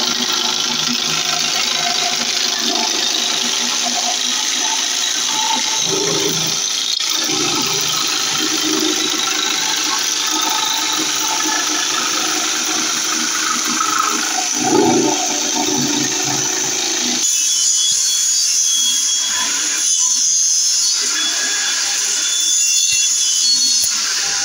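Handheld electric jigsaw running and cutting through a thin wooden panel. About 17 seconds in the sound changes abruptly to a thinner, higher hiss.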